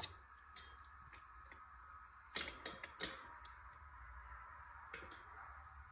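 Quiet room tone with a faint steady hum and a few scattered faint clicks, the clearest about two and a half seconds in.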